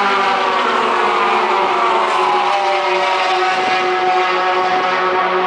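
Engines of a pack of pickup racing trucks running at speed on an oval. Several engine notes overlap and slowly fall in pitch as the trucks pass.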